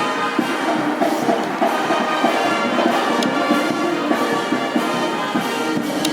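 Brass band playing, with percussion strokes among the horns.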